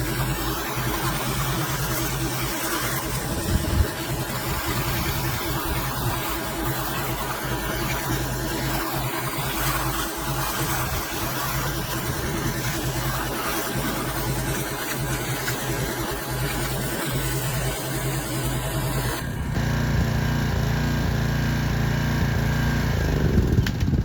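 Pressure washer running: a steady engine drone under the hiss of the water spray. Near the end the low drone gets louder and the hiss drops away.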